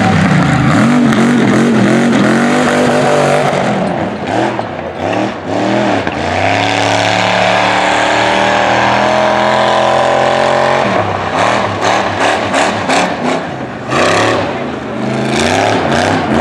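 Lifted mud truck's engine revving hard under full throttle on a dirt course. The revs swing up and down early on, then hold high and climb slowly for several seconds, then break into choppy bursts of throttle near the end as the truck bounces over the mounds.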